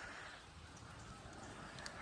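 Faint outdoor ambience: a steady low hiss with no distinct sound standing out.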